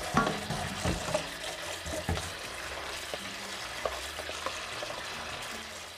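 Tap water running into a stainless steel colander of cooked tapioca pearls while hands stir and rub the pearls: a steady splashing hiss, with a few soft knocks in the first two seconds.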